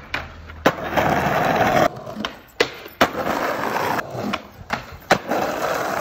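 Skateboard wheels rolling on pavement, with several sharp clacks of the board striking the ground.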